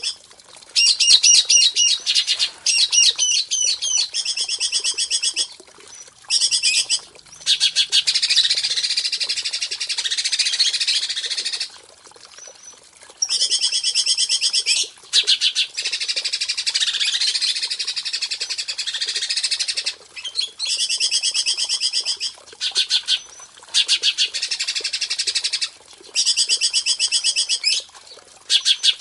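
Songbird singing high-pitched phrases of fast repeated notes, each lasting one to four seconds, with short pauses between them.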